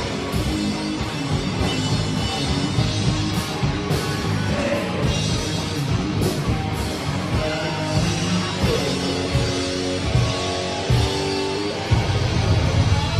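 A rock band playing live: electric guitar, electric bass and drum kit in an instrumental passage. About twelve seconds in, the bass-heavy low end swells and the band gets louder.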